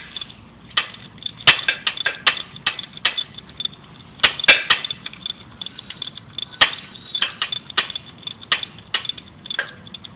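Irregular sharp metallic clicks and clinks from a 3/4-inch socket and torque wrench working the drive flange's centre bolt as it is tightened toward 75 foot-pounds.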